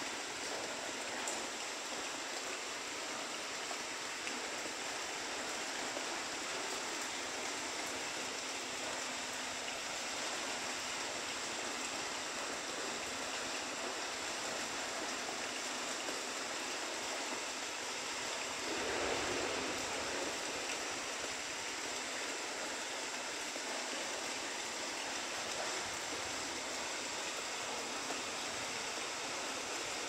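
Steady rain falling on grass and leafy plants, an even hiss with no pauses. About two-thirds of the way through it briefly swells louder and fuller for a second or two.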